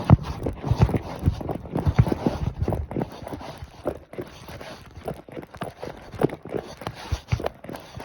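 Horse's hooves striking the ground in quick, uneven beats while being ridden; they are heavier for the first few seconds and lighter after that.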